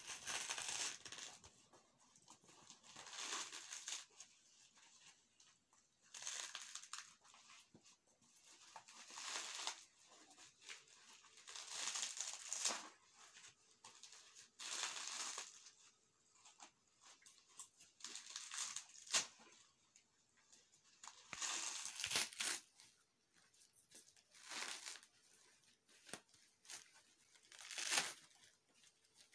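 Fibrous husk being torn off a dry coconut by hand, ripping in repeated pulls, one every two to three seconds.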